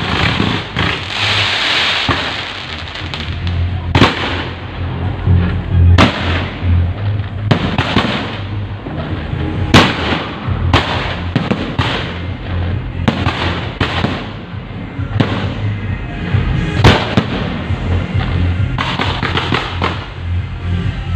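Fireworks and firecrackers going off, with a crackling burst near the start and then a string of sharp bangs at irregular intervals, over loud music.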